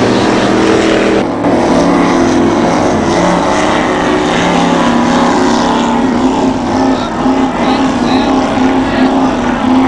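Supercharged race boat engines running hard at speed: a loud, steady engine note with a wavering pitch. The sound changes abruptly about a second in.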